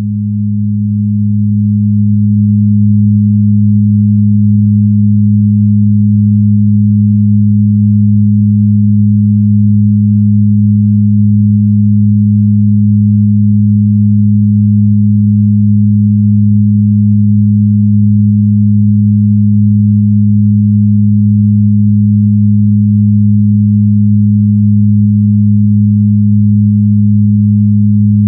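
Synthesized healing-frequency drone: a low, steady hum of pure electronic tones, one about an octave above the other. It fades in over the first two or three seconds, then holds unchanging.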